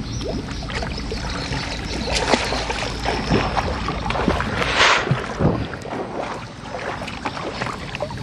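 River water lapping and sloshing against a plastic basin held at the surface, with scattered small knocks. A brief louder splash comes about five seconds in.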